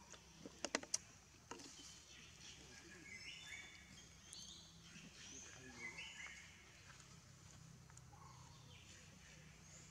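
Quiet forest ambience with faint bird chirps in the middle, and a few sharp clicks about a second in.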